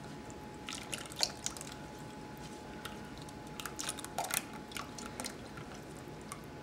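Wire whisk clicking and scraping against a stainless steel bowl while whisking egg yolks, as cream is poured in a little at a time. The clicks come in irregular clusters, about a second in and again around four to five seconds in, over a faint steady hum.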